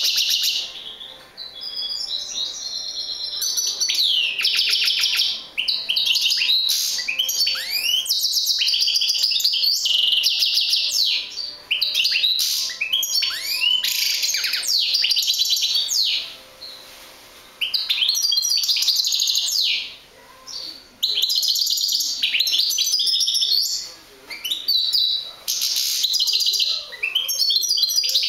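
European goldfinch singing: a long, fast run of twittering trills, buzzy notes and quick sliding whistles, broken by a few short pauses.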